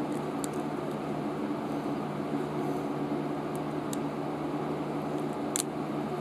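Steady low hum of background noise, fan-like, with a few faint clicks; the clearest click comes near the end.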